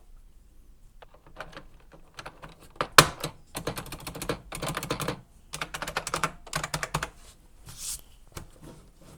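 Keycaps being pressed back onto a Unicomp Model M buckling-spring keyboard: runs of sharp plastic clicks and key clacks, with one louder snap about three seconds in.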